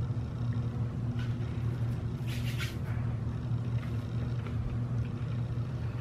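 Steady low hum of room tone, with a short scratchy rustle a little over two seconds in.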